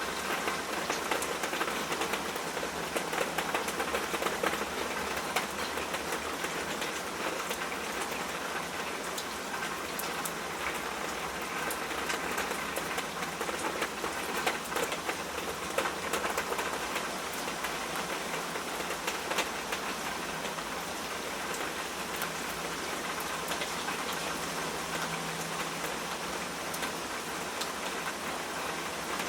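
Steady rain falling, with many small drops pattering on a hard surface.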